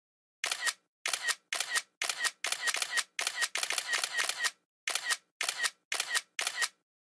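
Camera shutter sounds fired over and over, about a dozen of them at roughly two a second and coming faster in the middle: photos being taken in quick succession.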